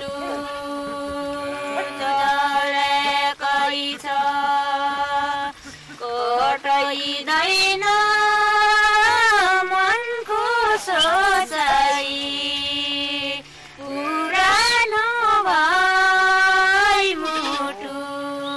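Two women singing a folk song in long held notes with wavering ornaments, pausing briefly between phrases.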